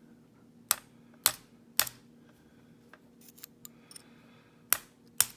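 Sharp metallic taps and clicks on a picked Schlage padlock as its core is worked with a tool to try to free it: three taps about half a second apart, a few lighter clicks, then two more taps near the end. The core stays stuck in its retainer.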